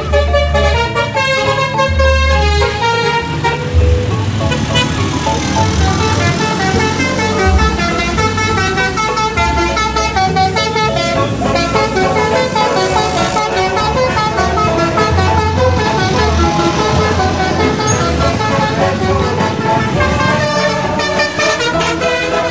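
Telolet multi-tone horn on an odong-odong mini tourist train, playing a long string of changing notes over a low rumble from the running vehicle.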